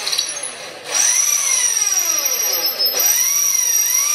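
Electric hand drill boring a hole into the base of a clay pot. The motor whine rises and falls in pitch, easing off briefly about a second in and again about three seconds in before speeding back up.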